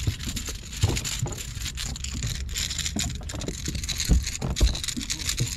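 A hooked bass being fought and reeled in to the boat: splashing and crackling water with scattered knocks, and a few low thumps about a second in and again around four seconds in.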